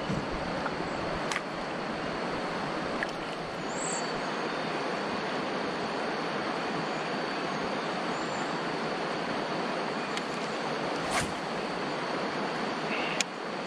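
Steady rushing of river current around a drifting kayak, with a few brief clicks scattered through it.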